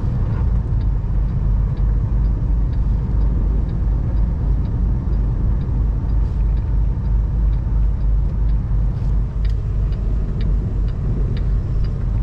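Steady low rumble of a semi-truck heard from inside its cab while it drives in high wind, with a light tick about twice a second.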